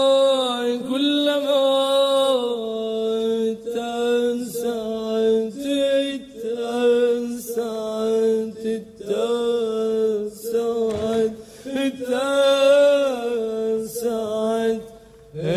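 A solo voice chanting without accompaniment, holding long notes that bend and waver, in phrases of one to two seconds with short breaks between them.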